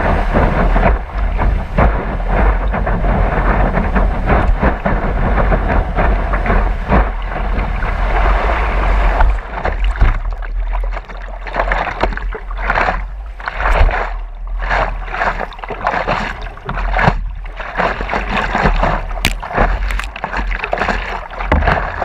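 Water rushing and spraying along a stand-up paddleboard riding a wave, with wind buffeting the microphone as a deep rumble. About ten seconds in, the steady rush breaks up into separate splashes and gushes as the board slows.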